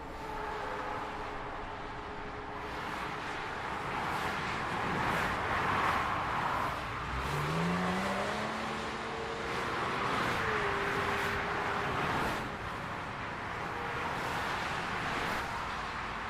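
Highway traffic: a continuous rush of tyre and engine noise that swells and eases as vehicles pass one after another. About seven seconds in, one engine's pitch rises as it accelerates.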